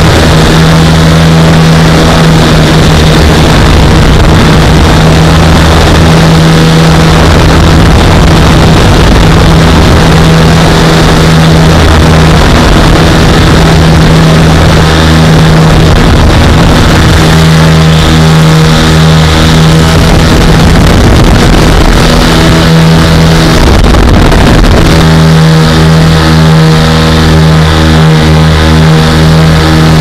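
Lazair ultralight's twin engines running steadily at cruise in flight, one even engine note throughout. A rushing noise, like wind on the microphone, half covers it for long stretches through the middle, and the note comes through clear again in the last few seconds.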